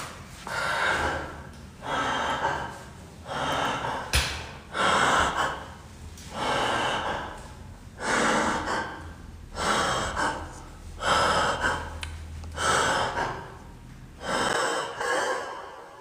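A man breathing heavily and deeply close to the microphone, loud rhythmic breaths about every second and a half; he has said his head is spinning. A single sharp click about four seconds in.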